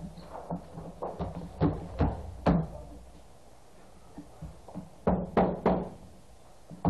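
Irregular knocks and thumps on a stage floor as performers move about, with a quick run of three sharp knocks about five seconds in.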